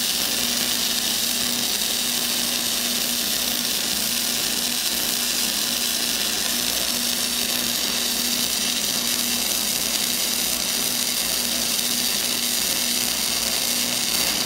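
Self-shielded flux-core arc welding from a small 110-volt welder with .035 wire, laying a straight drag bead: a steady arc sound that cuts off suddenly at the end as the bead is finished.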